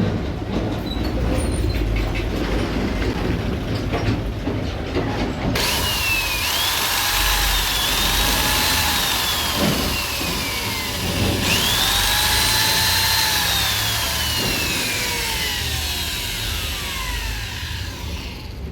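DU10 electric drill with a putty-mixing shaft running in two spells, each with a motor whine that rises quickly and then slowly falls, the first starting about five seconds in and the second about halfway through. The motor runs on new carbon brushes fitted after the old ones wore out and made it cut in and out.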